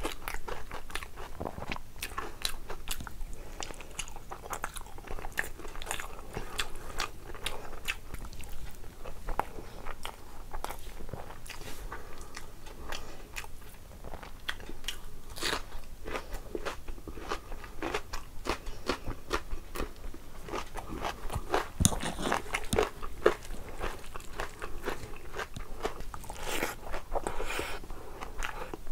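Close-miked chewing and biting of a meal of rice and curry, with a dense, steady run of crisp crunches and small wet mouth clicks; a few crunches stand out louder a little past the middle.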